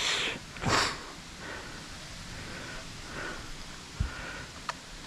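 A person sniffing sharply twice close to the microphone, then breathing softly, with a dull knock about four seconds in.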